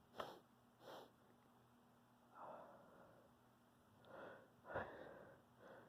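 A person sniffing and sneezing: six short nasal bursts, the sharpest just after the start and about five seconds in.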